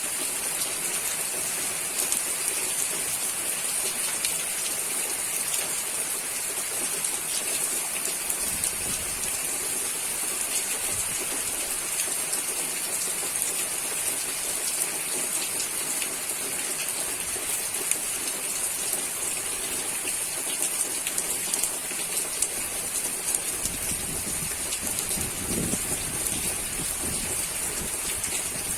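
Steady rainfall: a dense, even hiss with many small ticks of individual drops. A brief low rumble rises under it near the end.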